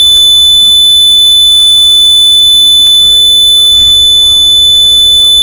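A loud, steady high-pitched electronic tone that never breaks, with fainter steady tones above and below it.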